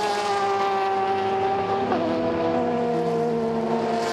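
Race car engine running hard at high revs, one steady note that sags slowly and steps down in pitch once about two seconds in.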